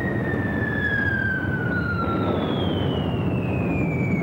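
Whistles of falling bombs: one long tone slides steadily down and fades about two and a half seconds in, while a second, higher whistle starts just before and keeps falling. Beneath them runs a steady, heavy rumble.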